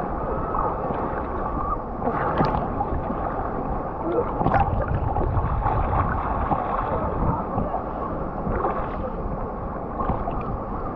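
Small sea waves sloshing and lapping against a camera held right at the water's surface, sounding muffled. There are a few louder splashes, about two seconds and four and a half seconds in.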